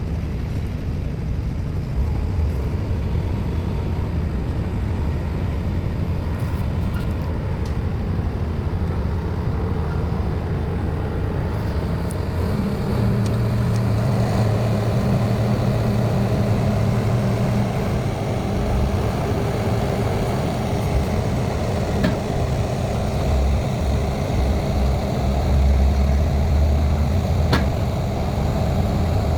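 Heavy diesel engine on a pile-driving rig running steadily, taking on a louder, deeper note about 13 seconds in.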